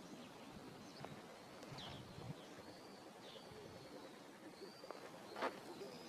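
Small birds calling faintly, short curving chirps repeated throughout, with a few soft taps and one sharper tap about five and a half seconds in.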